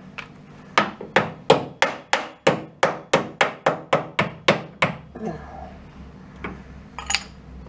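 A hammer tapping a steel sill repair panel: about a dozen quick, even blows at roughly three a second, each ringing briefly. A couple of lighter knocks follow near the end.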